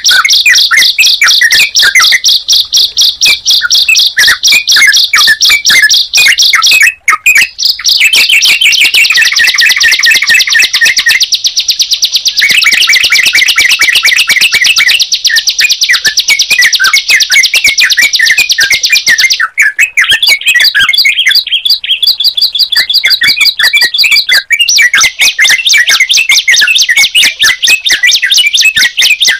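Recorded birdsong of a bar-winged prinia (ciblek) and a yellow-vented bulbul (trucukan) singing together: a loud, nonstop stream of rapid, high chirping notes over lower, separate notes. The phrasing shifts every few seconds.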